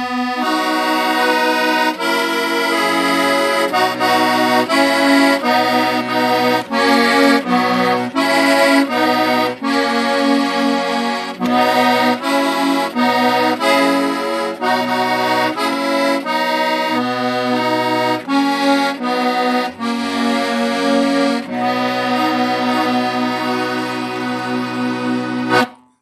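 Button key melodeon playing a tune, a melody over held chords and bass notes. It is a push-pull instrument that gives a different note on the bellows going in and out. The music stops suddenly near the end.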